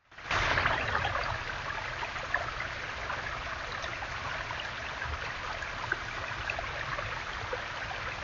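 Small backyard waterfall splashing steadily down a dry-stacked stone wall. The sound starts abruptly at the beginning as the camera clip begins and is a little louder for the first second before it settles.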